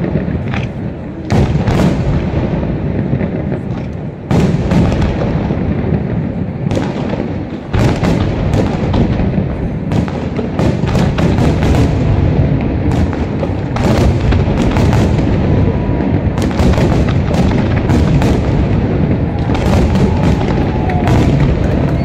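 Fireworks display: aerial shells bursting in quick succession, a dense run of booms and crackles that thickens into an unbroken barrage from about eight seconds in.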